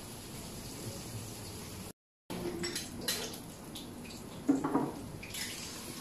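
Cooking at a stovetop pan: scattered clinks and splashy, watery noises from the pan and utensils. The sound cuts out completely for a moment about two seconds in, and the loudest clatter comes about four and a half seconds in.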